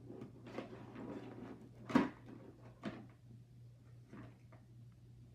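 Container of slime being handled: soft scuffs and scrapes, with a sharp knock about two seconds in and a lighter knock about a second later.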